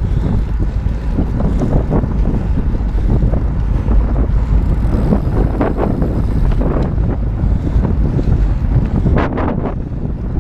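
Wind buffeting the microphone of a fast-moving camera: a loud, steady low rumble with irregular gusts.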